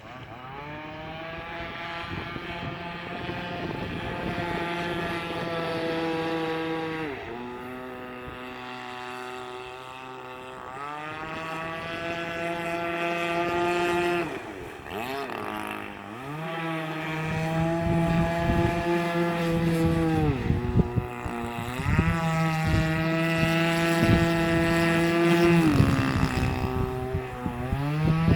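HobbyKing Warrior RC boat's 26cc two-stroke gasoline engine running under throttle. The pitch drops as the throttle eases off and climbs back up, four times, and the engine grows louder toward the end.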